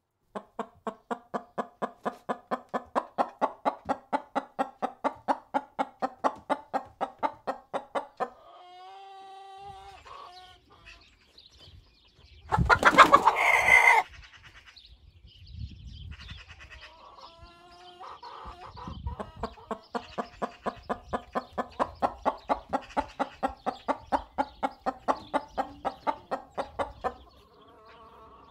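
A hen clucking in long, even runs of about four clucks a second, with a few drawn-out calls between the runs and one brief loud squawk about halfway through.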